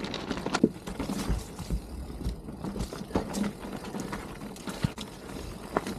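Mountain bike rolling over a snowy, muddy trail: a low rumble from the tyres, with irregular clicks and knocks as the bike's chain and frame rattle over bumps.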